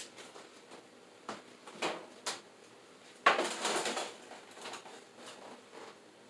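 A few light knocks and steps, then about three seconds in a short clatter and scrape of containers being moved on a pantry shelf.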